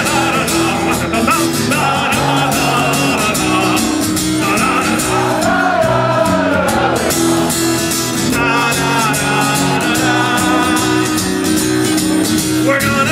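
Strummed acoustic guitar with voices singing a wordless, brass-like melody together, imitating a marching band.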